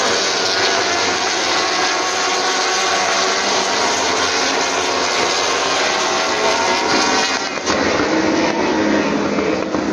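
A pack of World Superbike racing motorcycles going past at full throttle, many engines screaming together in one dense racket, early in the race with the field still bunched. The sound dips and thins about seven and a half seconds in as the pack draws away.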